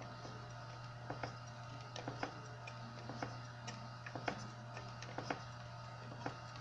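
Light, irregular metallic clicks and ticks, about two a second, from a modified F-connector crimper with a welded, rounded bolt being worked around aluminum tubing to roll a raised bead. A steady low hum lies underneath.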